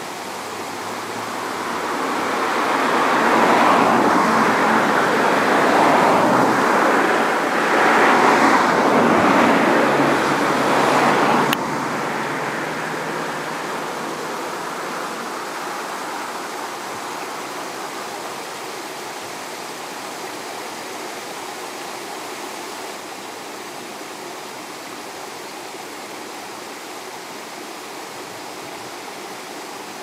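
Steady outdoor rushing noise with no pitch to it. It swells over the first few seconds, stays loud until about eleven seconds in, then drops suddenly with a click to a quieter steady rush.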